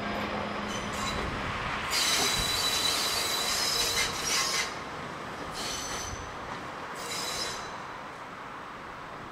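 Train wheels squealing against the rails as a train runs on standard-gauge track: one long squeal about two seconds in, then two shorter ones, the sound easing off towards the end.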